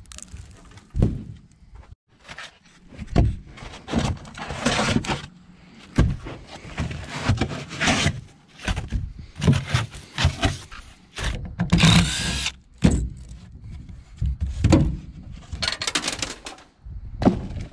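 Irregular knocks, thumps and scrapes as carpeted floor panels and foam blocks are pulled out of an aluminium boat hull and handled, with a brief squeaking scrape partway through.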